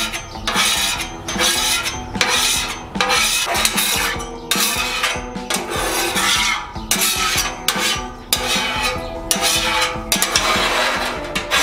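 A metal scraper pushed across a Blackstone griddle's wet steel cooktop in repeated scraping strokes, about one to two a second, clearing off water and loosened grease. Light background music plays underneath.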